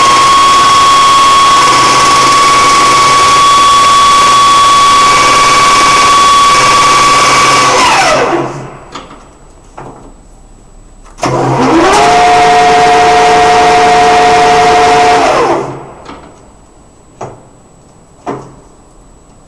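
Lathe headstock spindle running at speed with a steady whine, then winding down to a stop about eight seconds in. After a few clicks it starts up again, rising to a steady, lower-pitched whine for a few seconds before winding down once more, followed by two clicks.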